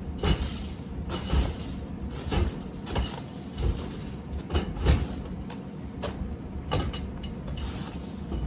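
A door being tugged and knocked at, giving a string of irregular knocks and rattles over a low steady rumble, as it resists being opened.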